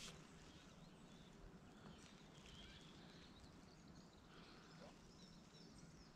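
Near silence: faint outdoor background with a few faint, short bird chirps.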